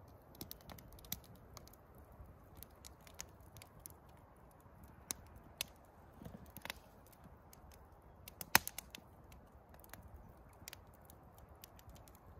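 Wood campfire crackling faintly, with sparse irregular pops and one sharper pop about eight and a half seconds in.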